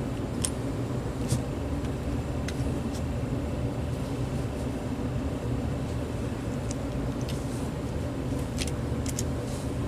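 Steady low background hum and rumble, with a few light clicks from the plastic parts of a cordless phone handset being handled and taken apart. A cluster of clicks comes near the end.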